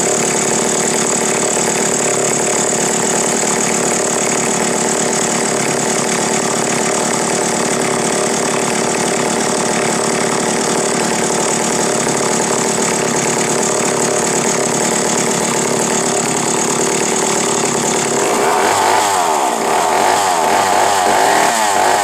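Vintage McCulloch 1-80 gear-drive two-stroke chainsaw running steadily, then its engine speed rises and wavers up and down over the last few seconds.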